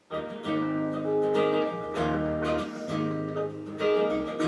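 Soft rock with strummed acoustic guitar playing from a Marshall Stockwell II portable Bluetooth speaker at half volume, cutting in suddenly at the start.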